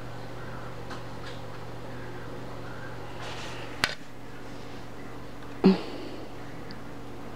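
Steady low hum like a fan or appliance, broken by a sharp click a little before the middle and a louder short knock a couple of seconds later, consistent with the camera bumping the plastic hamster cage.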